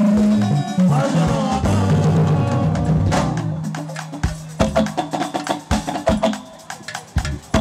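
Live highlife band music: electric guitar and bass notes that thin out and fade about three seconds in, leaving sparse drum strokes.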